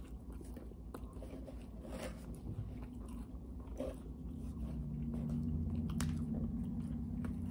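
Two people biting into and chewing crunchy breaded chicken bites, with wet crunches and small mouth clicks. A low steady hum joins about halfway through.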